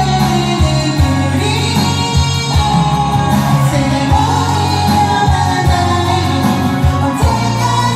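A song: a singing voice over band accompaniment with a steady drum beat.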